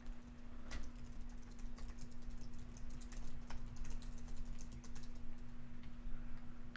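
Typing on a computer keyboard: a run of irregular key clicks over about five seconds, with a steady low electrical hum underneath.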